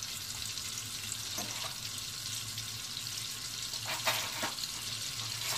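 Whole spices (cinnamon, peppercorns, cardamom and cloves) sizzling in hot butter in an aluminium pressure cooker, a steady hiss, with a brief sharper sound about four seconds in.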